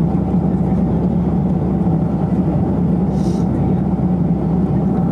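Steady cabin drone of a Boeing 757-200 in flight, heard from a window seat over the wing: engine and airflow noise with a strong low hum.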